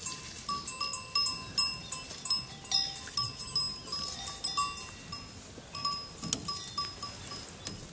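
Sheep bells clinking irregularly as the flock grazes. The strikes come about two a second, each ringing briefly at a few fixed pitches.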